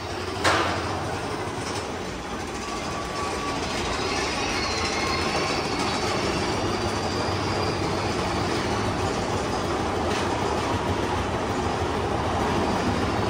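Big Thunder Mountain Railroad mine-train roller coaster running on its track: a steady rattle and rumble with high squealing from the wheels, and a sharp clack about half a second in.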